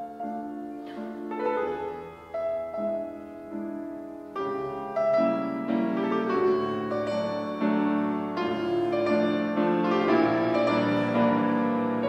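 Steinway grand piano played solo in a classical style, chords and notes struck one after another, growing louder and fuller about four seconds in.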